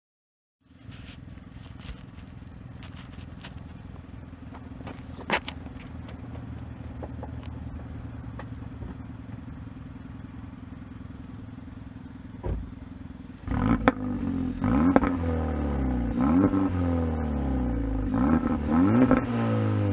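2018 Hyundai Elantra Sport's 1.6-litre turbocharged four-cylinder heard at the exhaust tips, idling steadily. About two-thirds of the way in it is revved in a series of quick blips, each rising and falling in pitch, louder than the idle.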